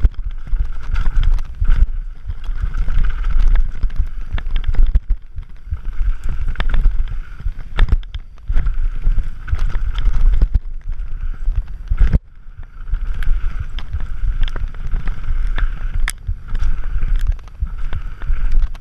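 Scott Gambler 720 downhill mountain bike ridden fast down a dirt trail, heard from a rider-mounted camera. Wind rumbles over the microphone, and the tyres and the bike's frame and suspension give frequent knocks and rattles over the bumps.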